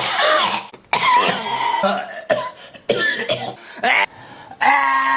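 A man coughing hard in a string of harsh fits, cut back to back. It ends in a drawn-out voiced strain at a steady pitch.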